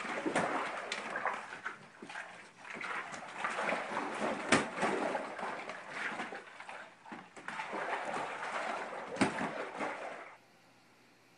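Water sloshing inside a waterbed, with the vinyl mattress creaking and crackling as a kitten walks and scrambles across it, and a few sharper knocks. It stops suddenly about ten seconds in.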